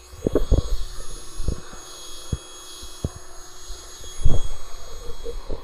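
Wind buffeting the microphone: irregular low thumps and rumble, the strongest about four seconds in, over a faint steady high whine.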